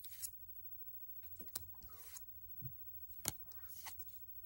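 Paper code cards being handled and sorted in the hands: a few faint, sharp clicks as card edges tap together, and soft rustles as cards slide over one another.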